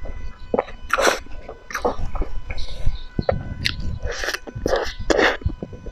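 Close-miked eating sounds of cake being bitten and chewed, with irregular clicks and mouth noises several times a second.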